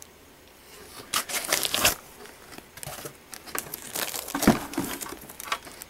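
Packaging crinkling and rustling as it is handled, in irregular bursts starting about a second in.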